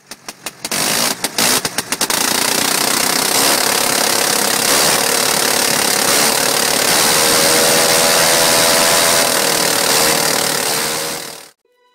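Aircraft piston engine sputtering into life with a quick run of pops, then running steadily with a loud, rushing noise. It cuts off abruptly near the end.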